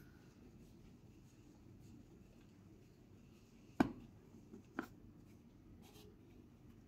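Hands working floured bread dough in a steel bowl, a faint rustling, with two sharp knocks about a second apart, the first louder, as dough balls are set down on a steel tray.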